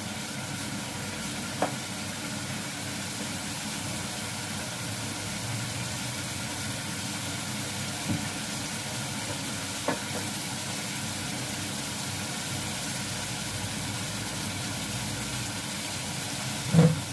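Beef and masala sizzling steadily as they fry in a pot on a gas stove, at the bhuna stage where the oil separates from the masala. A few sharp clinks come through, the loudest near the end.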